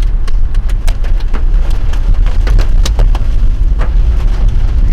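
A vehicle's steady low rumble, with many irregular sharp taps scattered through it.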